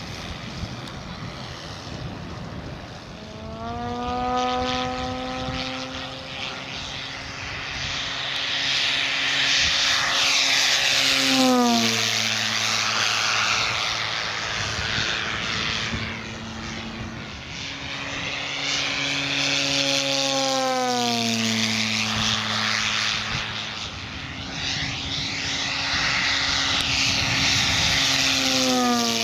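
Propeller noise from an electric giant-scale RC P-51D Mustang: a 24x8 two-blade propeller driven by a brushless electric motor, with no sound generator fitted. It gives a pitched drone that grows louder as the model approaches and drops sharply in pitch as it flies past, about twelve seconds in, again about twenty seconds in, and near the end.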